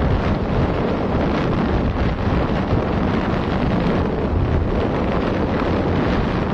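Steady wind buffeting on the microphone of a moving motorcycle, heavy and low, with the rush of the ride underneath.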